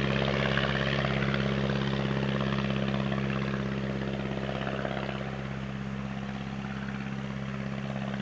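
Continental A-65 air-cooled flat-four engine and propeller of a light homebuilt airplane in flight, a steady drone that fades slowly as the plane draws away.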